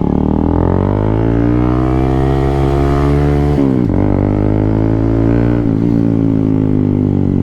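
Honda CB150R's single-cylinder engine under way, its note climbing as the bike accelerates, then dropping sharply at a gear change about three and a half seconds in and running steadily after.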